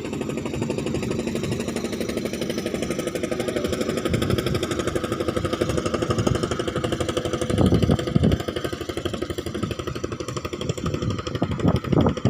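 Small boat engine running steadily with a fast, even chugging, with a few louder knocks about eight seconds in.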